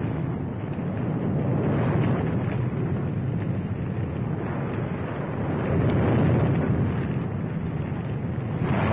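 Steady low rumble of distant battle noise, swelling louder about two, six and nine seconds in.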